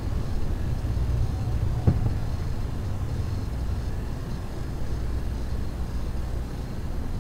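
A steady low rumble, with one sharp knock about two seconds in.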